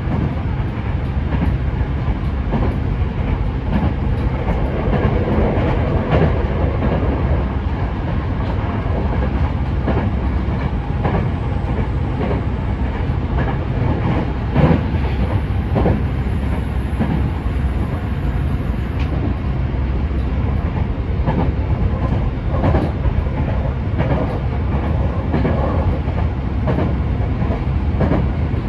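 Yokohama Municipal Subway Blue Line 3000A-series train running on open track, heard from inside its cab: a steady rumble of the wheels with the clickety-clack of rail joints and a sharper knock about fifteen seconds in.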